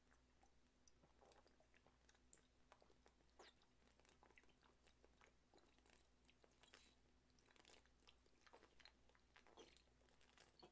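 Near silence: faint, scattered gulping and swallowing clicks as a bottle of soju is downed in one go, over a low steady hum.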